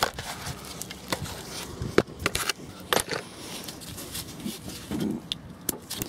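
Metal retaining clip being worked off a gearshift cable by gloved hands: a scatter of separate sharp clicks and knocks, the sharpest about two seconds in, with small rattles of the cable between them.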